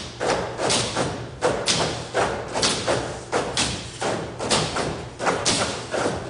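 Tabletop percussion from a group seated at a long table: sharp hand-struck knocks and slaps in an even rhythm of about two to three a second, repeating a short pattern.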